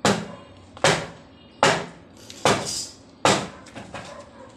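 Hammer striking the steel pipe frame of a monkey bars set, five blows at an even pace of a little over one a second, each with a short metallic ring.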